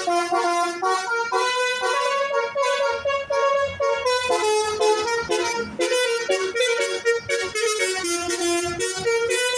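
Bus telolet horn, a multi-trumpet musical horn, playing a quick melody of held notes that step up and down several times a second.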